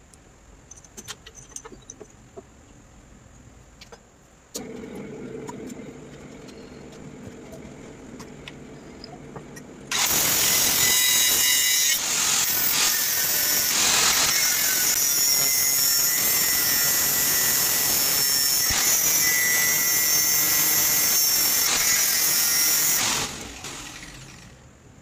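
Pillar drill press motor starts and runs with a steady hum; about ten seconds in, an angle grinder cuts in loudly, grinding a steel rod turning in the drill press chuck, and runs for about thirteen seconds before winding down near the end.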